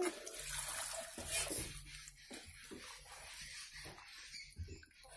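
Water being poured into a pan of spice-coated chicken pieces as a spoon stirs them: a splashing hiss with scattered wet scrapes and clicks against the pan.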